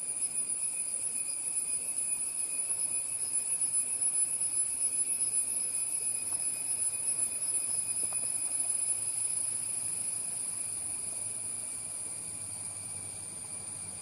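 Steady, high-pitched buzzing chorus of forest insects, easing a little in the last few seconds.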